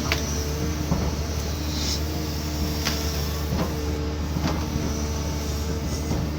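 Cat 320D2 hydraulic excavator's diesel engine running steadily, with a whining tone that comes and goes as the hydraulics work and scattered sharp knocks and cracks.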